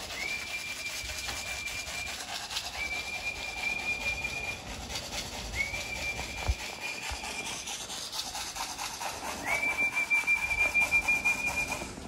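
Four long, steady high-pitched whistles, each starting with a quick rise in pitch and spaced a few seconds apart, the last one longest and loudest: a pigeon fancier whistling to call his flying pigeons down to the loft.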